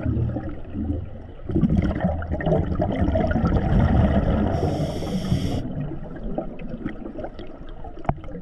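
Scuba diver breathing through a regulator underwater: a long gurgle of exhaled bubbles, then a hiss of about a second from the demand valve on the inhale, about five seconds in.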